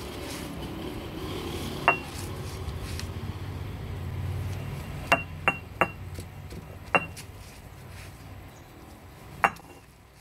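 Stone roller rolled back and forth on a flat stone grinding slab (ammikkallu), crushing coconut with shallots, garlic and chillies: a steady low grinding rumble broken by six sharp, ringing clinks. The grinding dies away near the end.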